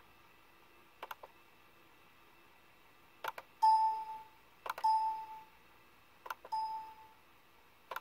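Windows 7 volume-adjust ding played three times through the Compaq Presario CQ60 laptop's built-in speaker, each a short ding that fades, led by a sharp click, about a second and a half apart. The speaker plays cleanly now that the short in its wires is fixed.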